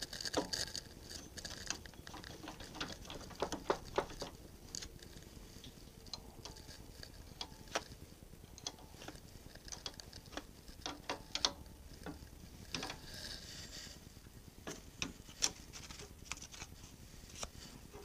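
Irregular light metallic clicks and taps of a combination wrench working the stud nut on an Atlas lathe's change-gear train, with hand handling of the gears, while the gear mesh is set with a paper shim for backlash.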